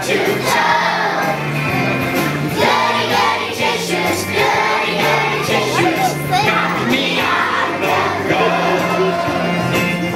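A choir of young children singing a song over recorded backing music with a steady bass line and beat.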